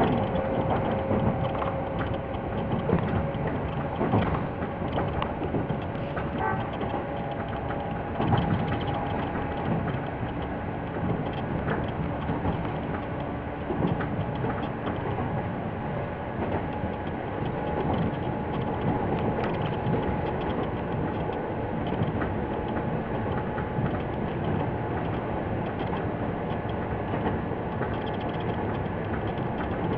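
Toyama Chiho Railway 17480-series electric train running, heard from inside the front car: a steady rumble of wheels on rails and running gear, with faint motor tones and occasional knocks.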